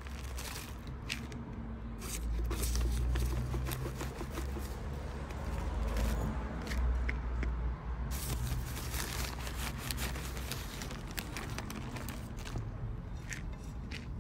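Plastic potting-mix bags crinkling and rustling as they are handled, with soil shifting inside, over a low rumble that is strongest in the middle. Near the end, a metal hand trowel scrapes into potting mix in a plastic pot.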